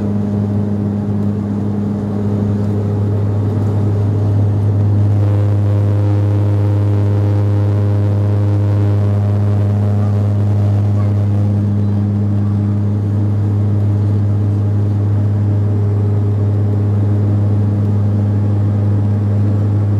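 Cabin drone of a Bombardier Dash 8 Q400's turboprop engines and six-bladed propellers in the climb after takeoff: a loud, steady low hum with a second, higher tone over it. It grows a little louder about four seconds in.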